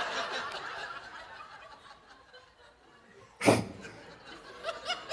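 Audience laughing, the crowd laughter fading away over the first couple of seconds. A single short, sharp burst comes about three and a half seconds in, then a few scattered chuckles and laughs pick up near the end.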